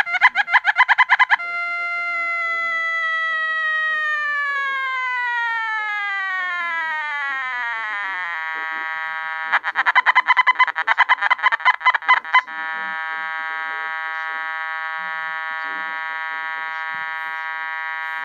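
Nokta Makro Gold Kruzer metal detector's electronic audio: a steady buzzy tone with many overtones. It breaks into rapid pulsing for about a second at the start and again for about three seconds in the middle, the detector's target signals. Between the two, the tone glides steadily down in pitch as a setting is changed, then settles on a new, lower steady tone.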